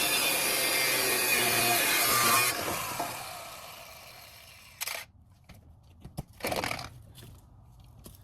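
Angle grinder cutting through the exhaust pipe, switched off about two and a half seconds in and spinning down over the next couple of seconds. After that, a few light knocks and a short scrape.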